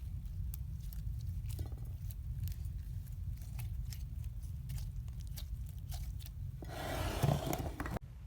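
Slime being handled: a run of small sticky clicks and pops, then a louder, denser stretch of squishing near the end that stops abruptly. A steady low hum runs underneath.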